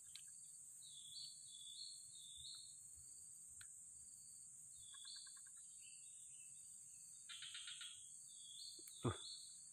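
Faint, steady high-pitched drone of crickets and other insects around a swamp pool, with scattered chirping calls over it. A brief thump about nine seconds in is the loudest sound.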